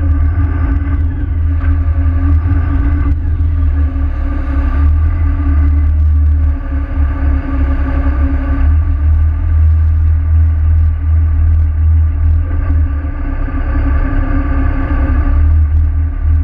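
A pilot boat's engines running steadily, a low rumble with a constant hum.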